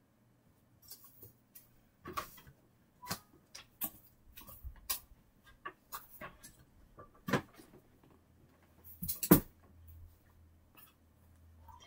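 Scattered soft clicks and knocks at an uneven pace, the loudest about seven and nine seconds in, with a low hum joining about nine seconds in.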